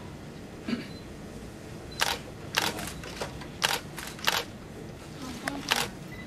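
Camera shutters clicking about five times at irregular intervals, starting about two seconds in, as photos are taken of a posed certificate presentation.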